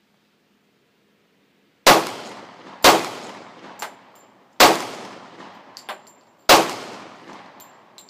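Four handgun shots at an uneven pace, each followed by a long echo that dies away over about a second. Fainter sharp clicks fall in the gaps between shots.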